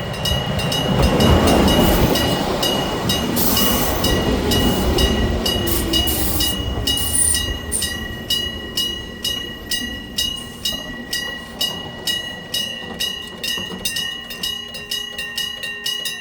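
Electric gong bell of a railway level crossing ringing with rapid, even strikes, while a Hokuriku Railroad 7200 series electric train runs over the crossing, loud in the first few seconds with a falling whine as it slows. A brief high squeal comes about seven seconds in, then the train noise fades and the bell keeps ringing.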